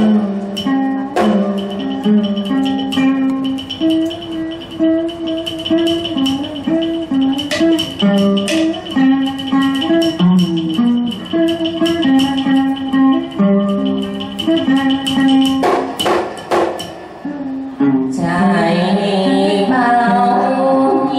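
Traditional Vietnamese ritual-song music: a plucked-string melody in short stepping notes with sharp percussive clicks, and a voice beginning to sing about three seconds before the end.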